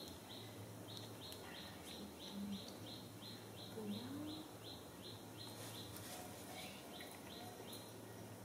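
A bird chirping in a steady run of short, high chirps, about three a second, over a faint low hum.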